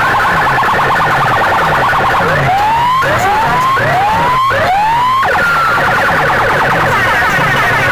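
Sound-system loudspeaker boxes playing loud DJ siren effects: a bass sweep falls over and over, about two to three times a second, under a fast chattering siren pattern. From about two seconds in, four rising whoops about 0.7 s apart replace the chatter, which then resumes.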